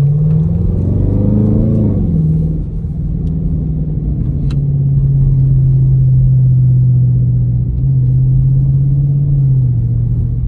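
2018 Dodge Charger R/T's 5.7-litre Hemi V8 accelerating, its pitch rising over the first two seconds and then dropping at a gear change. It then holds a steady drone at cruising speed and eases off near the end.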